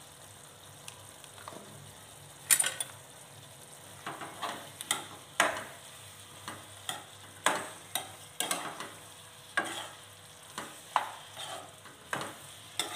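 Spatula stirring and scraping a mushroom fry around a nonstick frying pan over a steady sizzle. The scraping strokes begin about two and a half seconds in and come roughly once a second.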